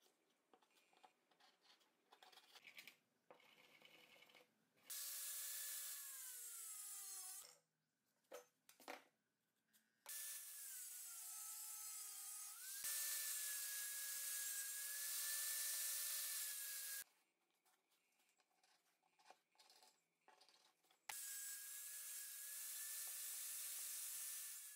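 Small angle grinder with a cut-off wheel slicing through a thin aluminium strip in three runs of a few seconds each. There is a steady motor whine under a harsh hiss, and the pitch drops while the wheel bites during the first run and again midway. Faint handling taps come before the first cut.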